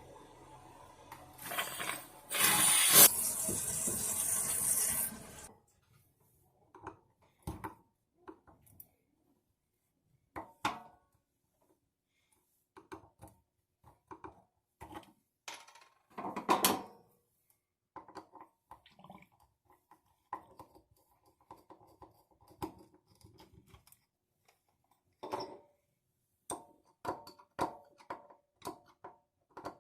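Water runs for about four seconds near the start. Then comes a long string of scattered clinks, knocks and handling noises from tools and small parts being worked.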